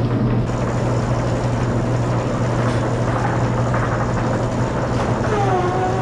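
Silo unloader conveyor running with a steady low hum, corn silage pouring off the end of the elevator into a metal feed cart. A brief squeak near the end.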